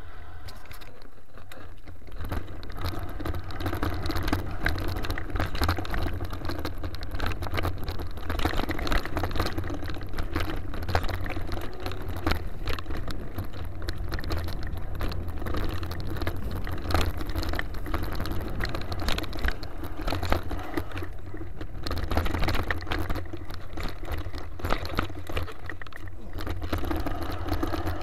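Mountain bike rolling over gravel and then a rough dirt trail: tyre noise with frequent clicks and rattles from the bike over bumps, and wind rumbling on the microphone.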